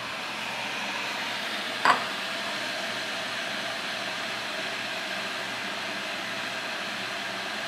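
Steady fan noise, with a single sharp knock about two seconds in.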